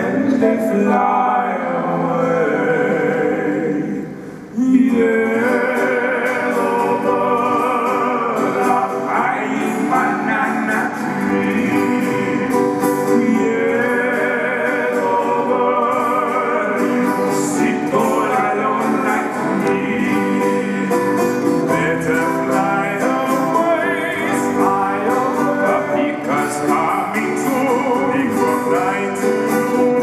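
Three male voices singing a song in close harmony, accompanied by a strummed ukulele and an acoustic guitar. The sound dips briefly about four seconds in, then the voices come back in strongly.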